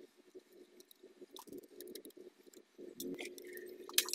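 Quiet handling of small laptop parts and a screwdriver on the disassembled laptop: scattered light clicks and taps over a faint steady hum, with a few sharper clicks near the end.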